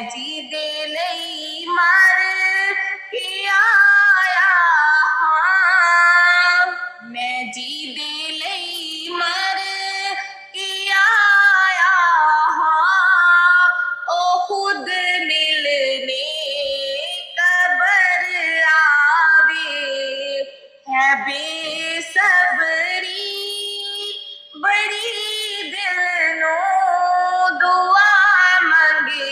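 A naat sung solo in a high voice with no instruments, in long, wavering, ornamented phrases with short pauses for breath between them.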